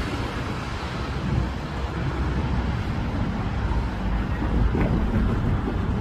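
Road traffic, with a double-decker bus driving off up the street, under a steady low rumble of wind buffeting the microphone.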